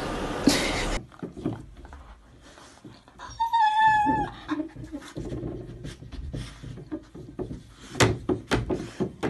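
A dog whines once behind a pet door, a high drawn-out note about a second long. Near the end the plastic pet-door flap clacks several times as the dog pushes its nose through. It opens with about a second of loud hiss and a short burst of noise that drops away suddenly.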